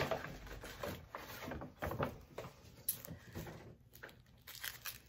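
A paper shopping bag rustling as hands rummage in it, then a plastic-wrapped snack package crinkling as it is handled: irregular soft rustles with a few light knocks.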